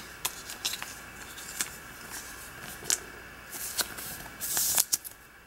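Light handling noise from a thick plastic trading card turned in the fingers: scattered small clicks and taps, with a short rubbing hiss a little past halfway through.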